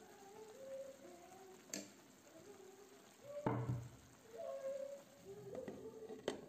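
Faint sizzling of meatballs in tomato sauce in a frying pan, with a faint wavering tone underneath. A dull thump comes about halfway, and a sharp clink near the end as a glass lid is set on the pan.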